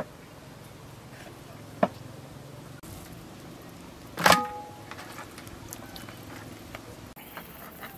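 Two sharp knocks, then a louder metallic clank about four seconds in with a short ring, as raw fish pieces are set down on a large aluminium serving tray.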